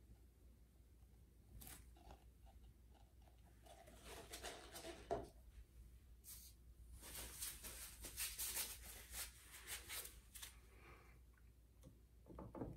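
Faint crinkling and clicking of plastic being handled: a sharp click about five seconds in, then a dense run of crinkly crackles for a few seconds before it dies down near the end.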